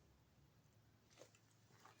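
Near silence, with two faint, soft sounds from a sleeping dog, about a second in and again near the end.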